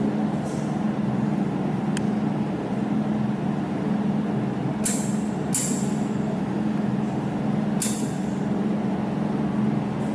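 Jewelry laser welding machine humming steadily, with short sharp clicks of the laser firing: one about two seconds in, two close together around five seconds, and one near eight seconds.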